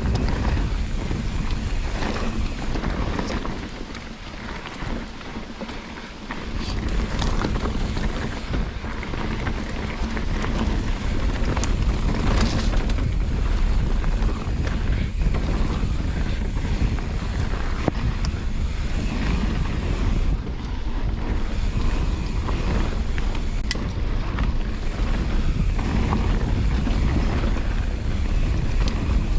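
Wind buffeting the microphone of a camera on a mountain biker riding a trail, with many short knocks and rattles as the bike goes over rough ground; it eases briefly about four seconds in.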